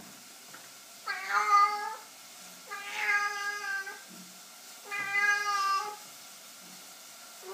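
Domestic cat meowing three times, each call about a second long, begging to have a closed door opened.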